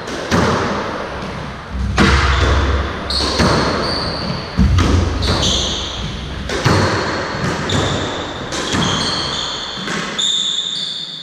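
Squash rally: the ball cracking off rackets and walls about once a second, each hit echoing around the enclosed court, with short high squeaks of court shoes on the wooden floor between shots.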